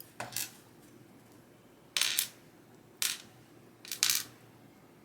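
Small metal key pins from a pin-tumbler lock being tipped out and clinking onto a hard surface, in four short clatters about a second apart.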